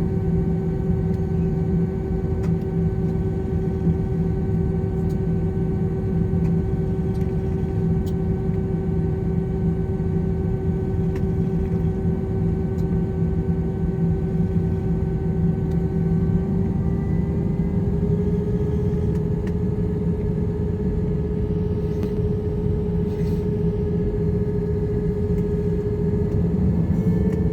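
Airbus A321 jet engines running, heard inside the cabin: a steady low rumble under a whine that steps up slightly in pitch about two-thirds of the way through and again near the end.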